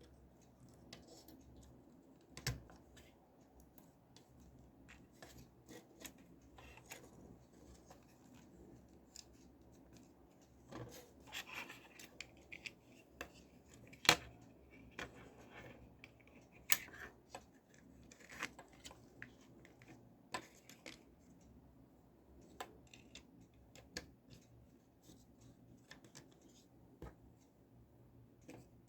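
Scattered small clicks, taps and short scrapes of a toy gun's parts being handled and worked on during a repair, with one sharper click about fourteen seconds in.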